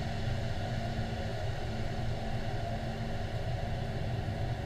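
Steady low droning noise with a faint constant hum running under it, unchanging throughout.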